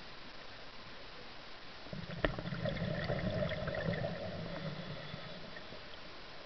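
Underwater bubbling from a scuba diver exhaling through the regulator: a click about two seconds in, then a low gurgling rumble of about three seconds that fades out.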